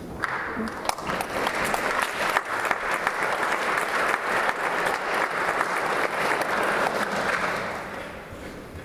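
Audience applauding: many hands clapping together, starting right away, holding steady, and dying down near the end.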